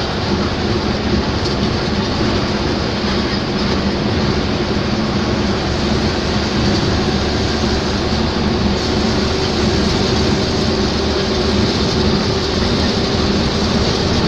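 Steady engine drone and road noise heard from inside a vehicle cruising along a highway, with a low hum that holds one pitch.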